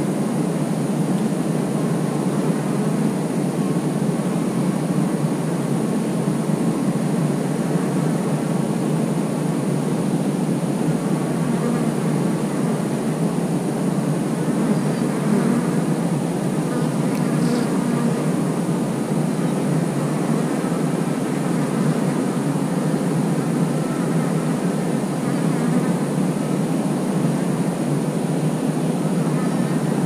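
Steady buzzing drone of many honeybees flying and crawling at a hive entrance.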